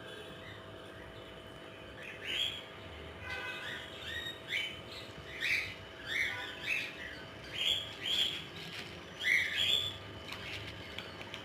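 Birds chirping in a string of short, repeated calls, about one or two a second, starting about two seconds in, over a steady faint hum.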